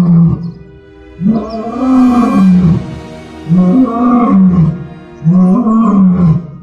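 Lion roaring: a series of long, pitched roars, each rising then falling, about one every two seconds, over a steady musical drone.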